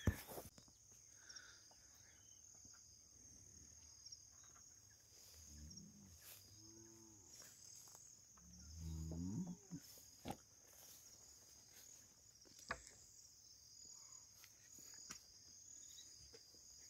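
Faint, steady chirring of insects in a high band, with two low calls from cattle about five and a half and eight and a half seconds in, and a few faint knocks.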